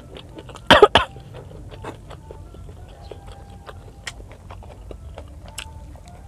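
A woman's short cough or throat-clear, two quick bursts about a second in, followed by the soft clicks and smacks of chewing and eating.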